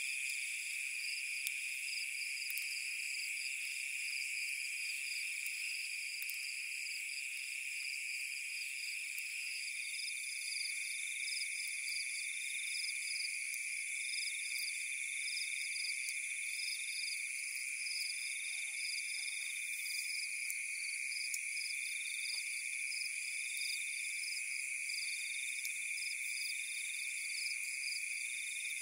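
Night chorus of insects and frogs: steady, layered high-pitched trilling, with one call pulsing about every second and a half.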